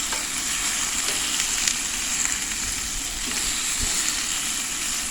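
Chicken strips frying in oil in a cast iron skillet, a steady sizzle with a few faint light knocks.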